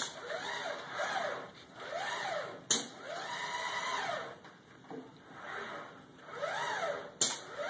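SCARA robot arm's axis motors whining as it moves, in a series of whines that rise and fall in pitch as each move speeds up and slows down, one held steady for about a second midway. Its gripper gives two short, sharp bursts, the second about four and a half seconds after the first.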